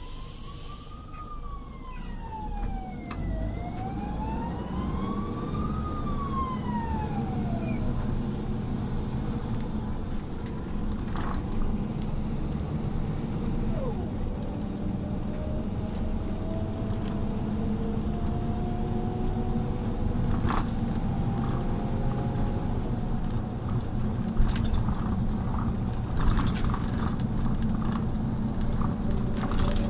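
Scania OmniLink city bus running, its engine and drivetrain giving a steady low rumble. For the first several seconds a siren wails, rising and falling. Later a faint whine climbs slowly in pitch as the bus gathers speed, with a couple of sharp rattles.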